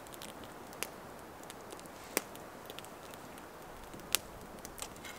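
A utensil clicking against a small frying pan a few times while eating, over a steady faint outdoor hiss.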